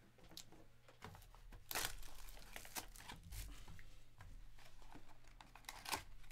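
Hands unwrapping and handling trading-card box packaging: faint crinkling and tearing of plastic wrap and cardboard, with scattered small clicks, a louder rustle about two seconds in and another near the end.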